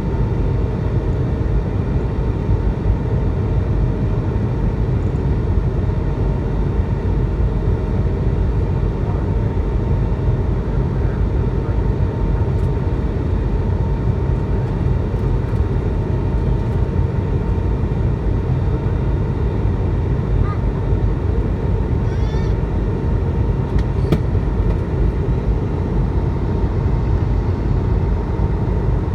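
Steady cabin noise inside an Airbus A220-300 airliner in flight: the rush of air and the drone of its Pratt & Whitney PW1500G geared turbofans, with a steady hum. A few faint clicks come about two-thirds of the way through.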